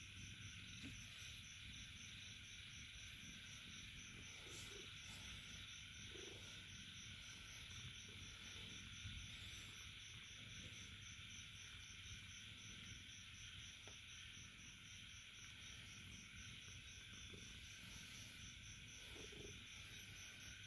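Near silence: faint insect chirping, a high pulse repeating evenly a few times a second, over a steady faint hiss.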